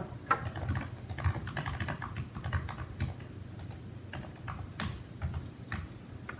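Big screwdriver prying and jamming at a plastic headset, making irregular small clicks, knocks and scrapes of metal on plastic, with a few sharper clicks near the end.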